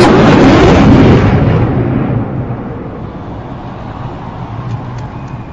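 Jet engine noise of a Sukhoi Su-30MKI fighter climbing overhead. It is loudest for the first two seconds, then fades to a low rumble as the jet climbs away.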